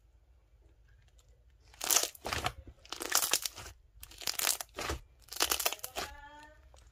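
Slime being squeezed and kneaded, crackling and popping as its air bubbles burst, in four bursts starting about two seconds in.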